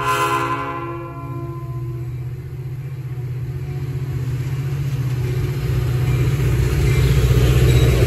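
The tail of a diesel locomotive's multi-note horn chord dies away in the first second or two. Then the engine's low rumble and the rail noise of a Metra commuter train grow steadily louder as the locomotive draws close and passes.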